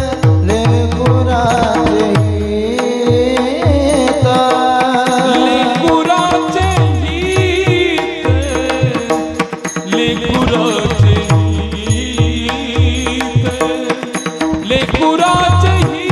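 Marathi kirtan chaal: a male voice singing a devotional melody, with tabla strokes whose deep notes slide down in pitch, over a steady drone.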